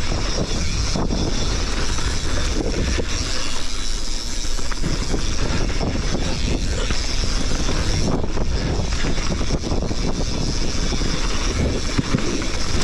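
Steady wind rush and rumble on an action camera's microphone, with a mountain bike rolling over a dirt singletrack.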